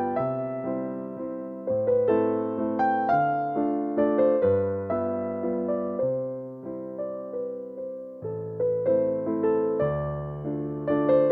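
Background music: a gentle piano or electric-piano piece, a slow melody of plucked-sounding notes that each fade away over changing bass chords.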